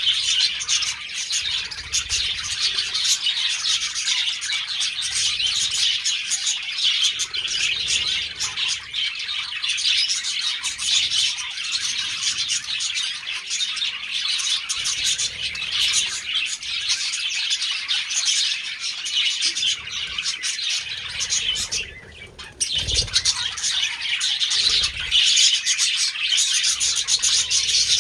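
Budgerigars chirping and chattering continuously, a dense, busy warble of high chirps, with a short lull about two-thirds of the way through.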